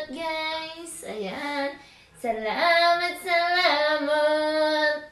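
A woman singing a short playful tune alone, with no instruments, in a high voice: a first phrase, a brief pause about two seconds in, then long held notes.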